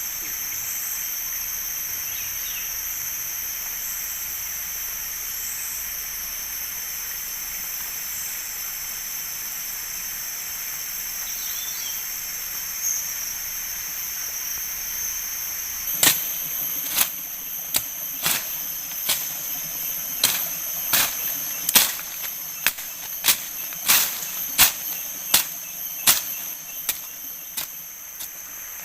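Steady high-pitched insect chorus of the tropical forest. About halfway through, a run of sharp knocks or taps starts, roughly one a second, and keeps going until near the end.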